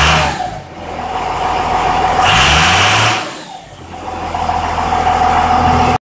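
Second-generation Cummins 5.9 L inline-six turbo-diesel revved twice, about two seconds apart. Each rev climbs and falls back toward idle over a steady high whine, and the sound cuts off abruptly near the end.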